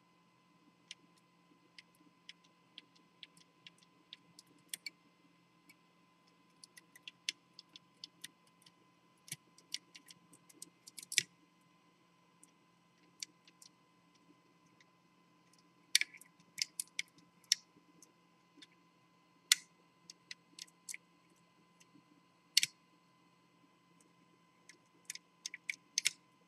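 Irregular small clicks and ticks of a curtain pick and pick wire working the levers inside a 5-lever ERA Viscount curtain deadlock, in clusters around 11 s, 16 s and 25 s, over a faint steady hum.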